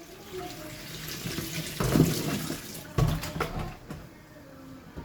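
Water pouring and splashing over spinach, with a couple of knocks about two and three seconds in.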